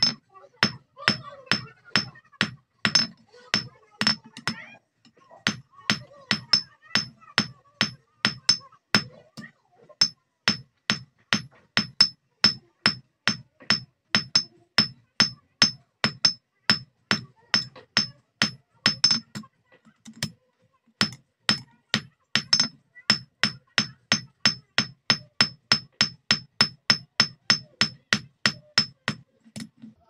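Hand hammer forging a hot steel bar on a steel block anvil: a long, steady run of ringing hammer strikes, about two or three a second, broken by a few short pauses.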